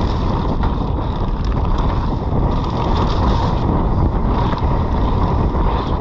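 Mountain bike riding fast down a rough, wet trail: wind rushing over the camera microphone over the steady rumble and rattle of tyres and frame on the rough ground.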